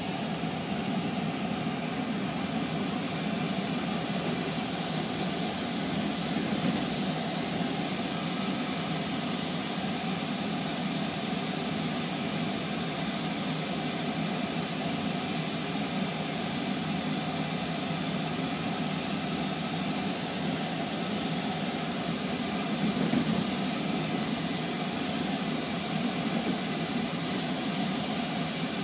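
Steady rumble and hum of a Metrolink commuter train heard from inside a passenger car, even throughout with no distinct events.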